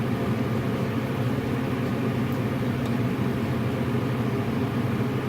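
Kitchen range hood fan running with a steady hum and rush of air.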